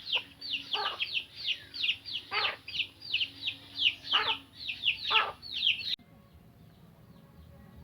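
Newly hatched chicks peeping: a rapid stream of short, high, falling peeps, several a second, with a few fuller calls among them. It cuts off abruptly about six seconds in, leaving only faint background.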